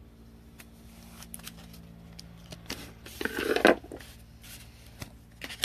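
Trading cards and pack wrappers being handled: light clicks and rustles, with one louder scrape or crinkle about three seconds in.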